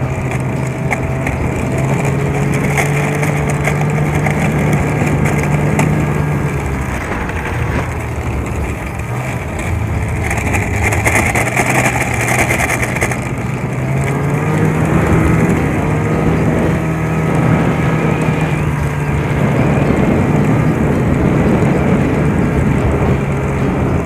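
Snowmobile engine running while riding, easing off about seven seconds in and picking up again around fourteen seconds in.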